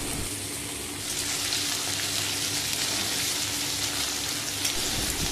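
Potato and carrot pieces sizzling in hot mustard oil in a kadai, the sizzle growing louder about a second in, with a metal spatula stirring them.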